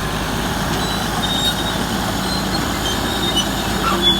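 A Komatsu D375A bulldozer's six-cylinder diesel engine running hard, a loud steady noise with a low hum, with a few short, high squeaks from its steel crawler tracks.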